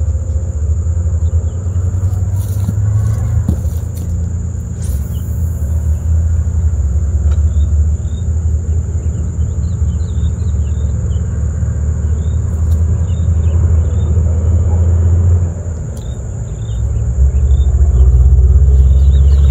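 Wind buffeting the phone's microphone: a loud, uneven low rumble that drops briefly about three-quarters of the way through, then swells again. Faint short high chirps sound now and then through the middle.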